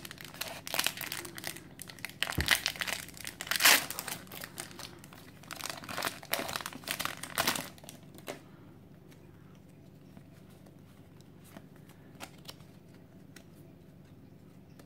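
Foil wrapper of a Pokémon Generations booster pack crinkling and tearing as it is ripped open by hand, the loudest rip about four seconds in. The crinkling stops about eight seconds in.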